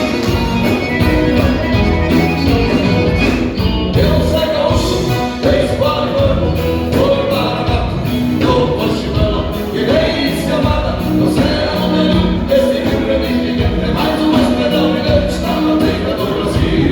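A band playing a song with a lead vocal, with a full steady beat and bass.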